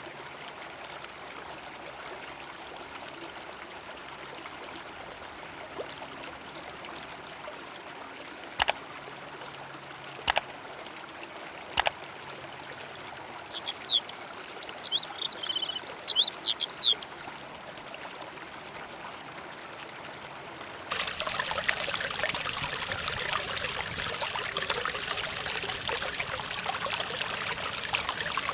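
River water running steadily, with three sharp knocks a second or two apart and then a bird chirping a quick run of calls midway. About two-thirds of the way through, the water sound suddenly becomes louder and brighter.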